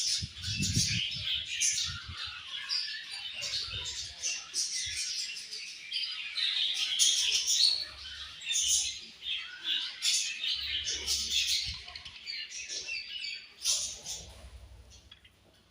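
A colony of budgerigars chirping and warbling, many birds at once, fading away near the end.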